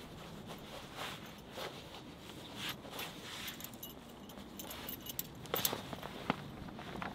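A leather belt being handled and pulled out straight by gloved hands, with small metallic clinks and rustling of gloves and jacket. A few sharper clicks come about five and a half seconds in and again just after six seconds.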